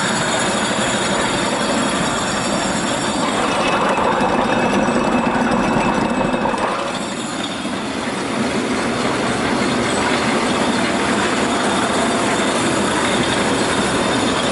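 Electric stone mill running: its motor and belt drive turning the grinding stones in a loud, steady mechanical whir, easing off slightly about seven seconds in.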